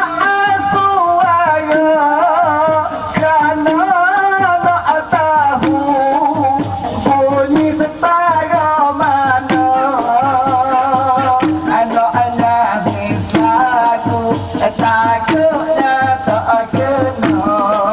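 Music: a wavering melody line with vibrato over a steady rattling shaker beat and a pulsing bass, played at a steady loud level.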